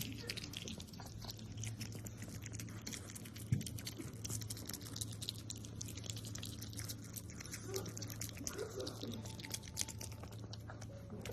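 Pet otter chewing and crunching food, a steady patter of small wet clicks and smacks with one sharper knock about three and a half seconds in, over a steady low hum.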